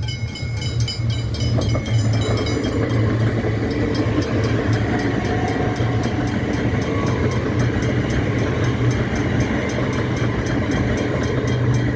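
Metro suburban electric train running past close by, the sound building over the first couple of seconds and then holding steady with a low hum and a fine regular clicking.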